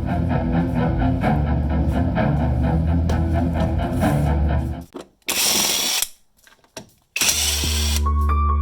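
Background music with a steady rhythm, broken a little past the middle by two short bursts of harsh, hissing noise with brief silences around them.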